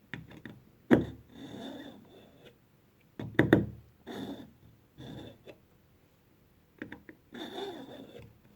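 A pocket-knife blade pulled repeatedly through the coarse slot of a KitchenIQ pull-through knife sharpener: about five strokes, each a short scraping rasp with a high ring, set off by sharp clicks as the blade goes in and knocks against the sharpener.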